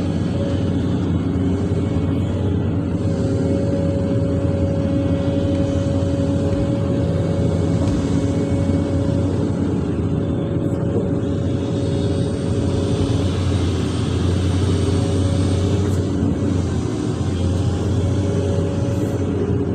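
Hydraulic excavator's diesel engine running steadily with a constant whine over it, heard from inside the operator's cab.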